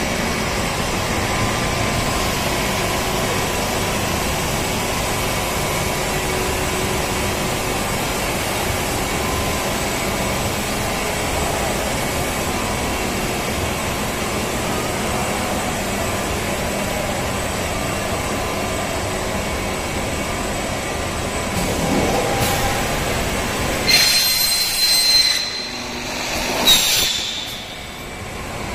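PVC pipe extrusion line running: a steady machinery din with faint constant hums. Near the end the din drops and a few short high squeaks and knocks are heard.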